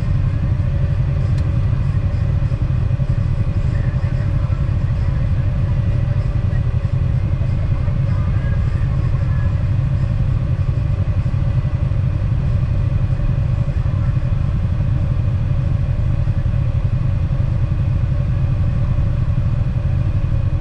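Off-road vehicle engines idling steadily while stopped, a constant low rumble with no revving.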